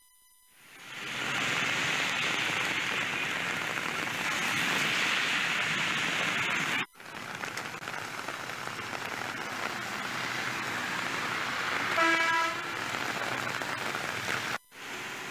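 Steady hiss of rain and of traffic on a wet road, cut off sharply twice. Late on, a vehicle horn sounds once, for about half a second.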